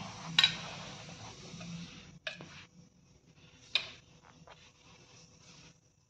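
Steel spoon scraping and tapping inside a metal tea strainer as ground liquorice root is sifted, with a few sharp clinks, the loudest about half a second in.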